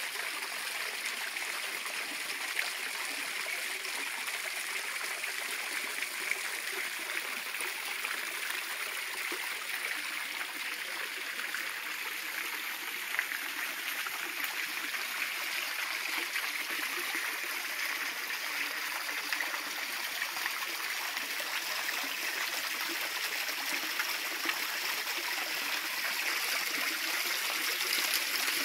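Steady rush and splash of water from a park fountain, welling up over a stone sphere into a shallow basin. It grows a little louder near the end.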